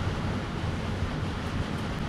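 Steady low rumble of a portable butane stove's burner flame under a pan of simmering stir-fry, with a couple of faint light clicks of a metal spoon against the pan near the end.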